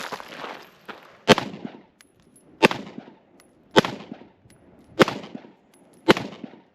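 Five single gunshots about a second and a quarter apart, each with a short echoing tail: one aimed head shot at each of five targets from standing.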